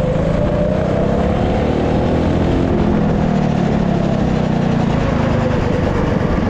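Go-kart's 196 cc single-cylinder engine, fitted with an oversized 26 mm carburettor, running hard at high revs while the kart drives at speed. The pitch climbs slowly over the first few seconds, then holds steady and sags slightly near the end. The carburettor is not yet tuned for the top end.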